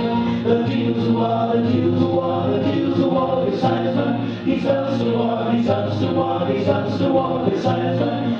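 Live folk band playing: voices singing long held notes over a steady low tone from stringed instruments, with a light beat of about two strokes a second.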